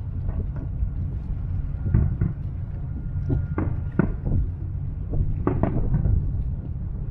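Distant aerial fireworks going off in an irregular string of bangs, loudest about two and four seconds in, over a steady low rumble of wind on the microphone.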